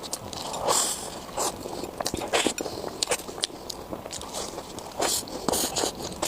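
Close-miked mukbang eating: irregular bites and chewing with short crisp clicks and wet mouth sounds.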